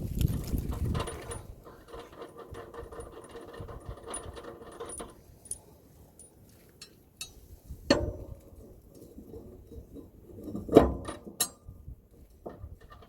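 Metal clinks and knocks of tools and parts being handled while mower blades are refitted. A sharp knock comes about eight seconds in, and the loudest knock about three seconds later.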